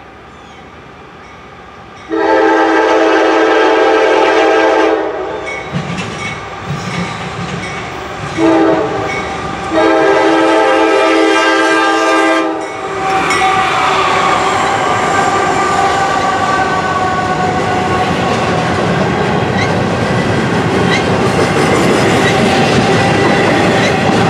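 Norfolk Southern GE AC44C6M diesel locomotive's air horn sounding for the grade crossing: a long blast, a short one, then another long blast. The locomotive then passes with a brief falling pitch. Double-stack container cars follow, rolling by with a steady wheel rumble and clickety-clack.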